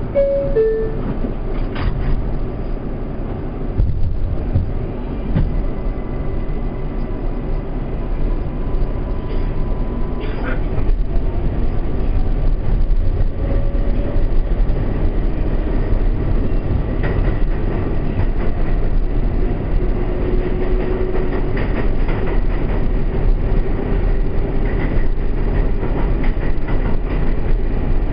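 Inside an R142A subway car: a brief two-tone door chime at the start, then the train pulls out and runs on with a steady rumble and rail noise, under faint motor tones. It grows louder about twelve seconds in as the train picks up speed.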